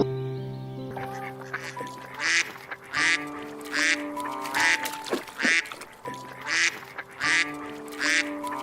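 Repeated short animal calls, about ten of them coming once or twice a second, over background music with long held notes.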